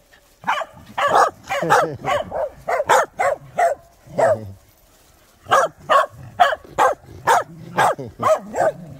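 Several corgis barking and yipping together, short pitched barks following each other rapidly, with a brief pause about halfway through.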